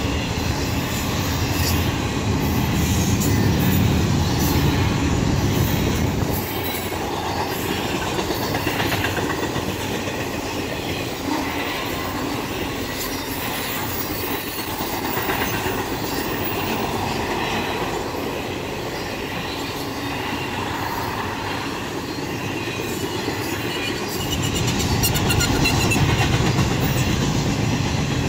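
Double-stack intermodal freight train's container well cars rolling past, steel wheels rumbling and clacking steadily over the rails. The rumble is heavier for the first six seconds or so and swells again near the end.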